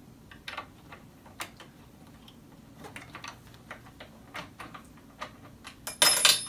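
Irregular light clicks and ticks of a tool working the bolts on the metal mechanism plate under an office chair seat. A brief, louder scuffing noise comes about six seconds in.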